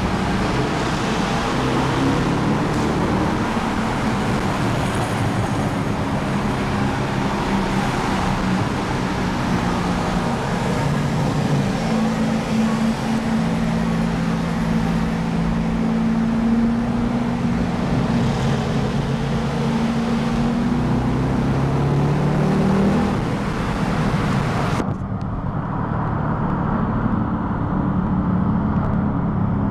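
Engines and exhausts of modified performance cars driving through a road tunnel, with road and wind noise, heard from inside one of the cars. Past the middle the engine note climbs steadily for several seconds as a car accelerates; about 25 s in the sound suddenly turns duller as the high hiss drops away.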